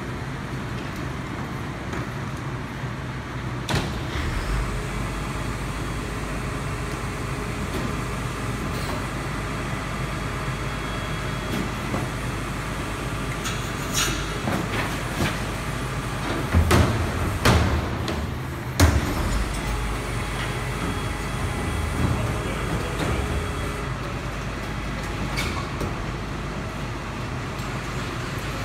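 Garbage truck engine running steadily, with a few sharp knocks and a cluster of loud bangs and clanks about two-thirds of the way through.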